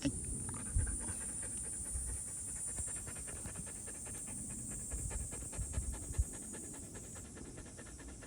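A large dog panting rapidly and steadily, with a few soft low thumps.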